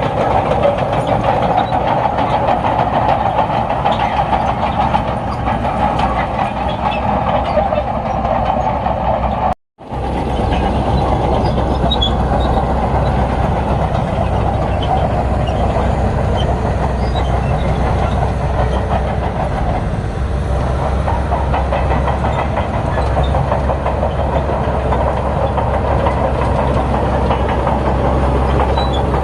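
Crawler bulldozer's diesel engine running steadily under load, with the steel tracks clanking and clattering. The sound cuts out for a split second about ten seconds in.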